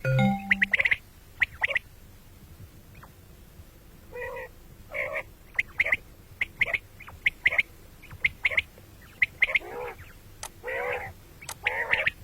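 Quail calling: many short, sharp calls in quick clusters with brief gaps between them.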